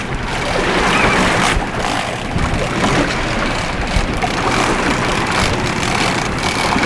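Wind buffeting the microphone over the steady hum of a boat's engines and rushing water.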